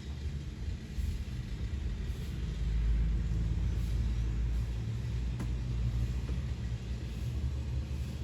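Low motor-vehicle rumble that swells a few seconds in and then settles.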